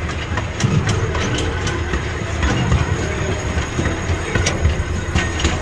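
Miniature train running along its track, heard from aboard: a steady low rumble of the cars with sharp, irregular clicks from the wheels passing over rail joints.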